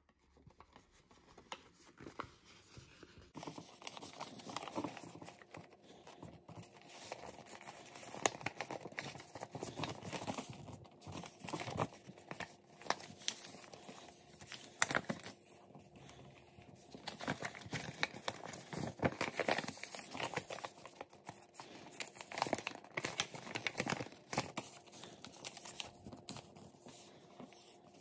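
A creased sheet of letter-size paper being folded and pressed by hand: irregular crinkling and rustling with sharp crackles as the creases are made. It is sparser and quieter for the first few seconds.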